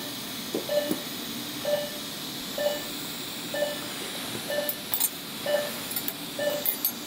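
Operating-room patient monitor beeping about once a second with the patient's pulse, over a steady room hiss. A few light metallic clicks from the surgical instruments come in the second half.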